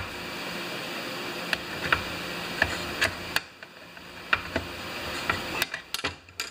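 Small metal clicks and taps of pliers working on a chainsaw's chassis and carburetor mounting. Under them is a steady hiss that stops about three and a half seconds in.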